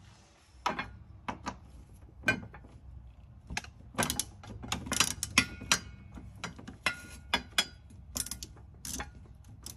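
Ratchet wrench clicking in short, irregular runs as it backs out a 10 mm bolt from a small bracket under the car.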